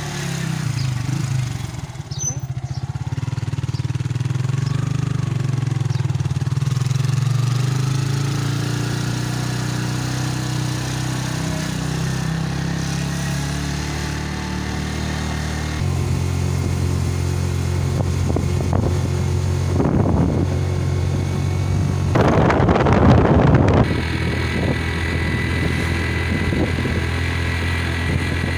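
Motorcycle engine running steadily under load on an uphill ride, heard from the bike itself; its note changes about halfway through. Near the end there is a loud rush of noise lasting about two seconds.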